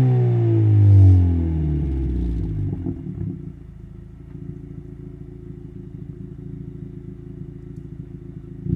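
1.5-litre turbocharged four-cylinder of an 11th-gen Civic Si / Integra running through a MAPerformance cat-back exhaust. The revs fall away after a rev, and the engine settles to a steady, quieter idle about three seconds in.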